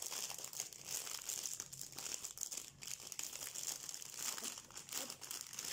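Plastic packaging of a diamond painting kit crinkling continuously as it is unwrapped and handled.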